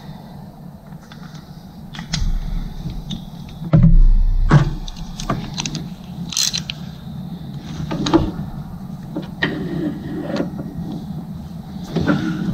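Scattered metal clicks and clinks of a socket wrench and extension working in an engine bay, with a heavier knock about four seconds in, while a replacement cooling fan temperature sensor is being started into its threads.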